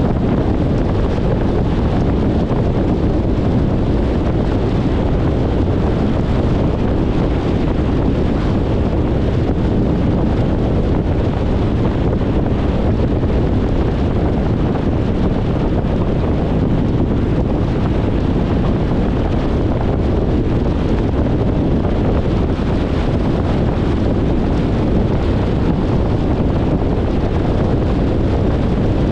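Steady car road noise: a continuous rumble of tyres and wind with no distinct events.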